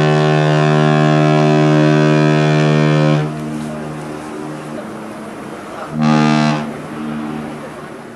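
Cruise ship's horn sounding: a long steady blast that stops about three seconds in, then a short blast about six seconds in.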